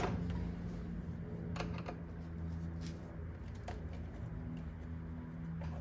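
A few scattered small clicks and taps of hands working a plastic electrical connector on an engine sensor, over a steady low hum.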